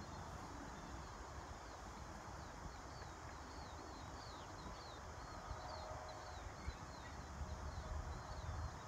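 Wind on the microphone, with a small bird's short high chirps repeating throughout.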